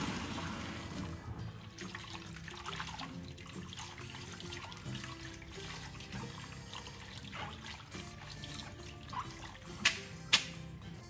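Boiled udon and its hot water poured from a pot into a plastic colander in a stainless-steel sink, loudest in the first second. Then tap water runs as the noodles are rinsed by hand. Two sharp knocks come near the end as the colander is lifted and shaken.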